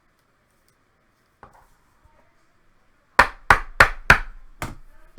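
A faint knock, then five sharp knocks on a hard surface in quick succession, about three a second, the first four loudest.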